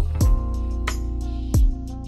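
Background music with a beat: sustained tones with two deep drum hits, one just after the start and one about a second and a half in.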